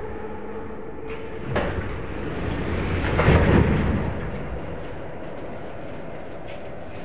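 Vagonmash 81-series metro car standing at a station. A steady tone stops with a sharp click about a second and a half in, a rush of noise swells and fades around three seconds in, and the car's steady hum is left.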